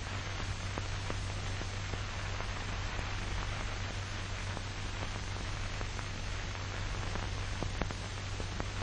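Steady hiss and low hum from an old film's optical soundtrack, with scattered faint crackles.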